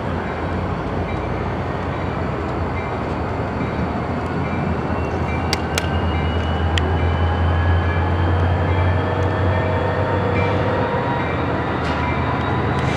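Switching locomotive and freight cars moving through a rail yard: a steady rolling rumble under a low diesel drone that swells about halfway through. A few sharp clicks come near the middle, and a thin whine climbs slowly in pitch through the second half.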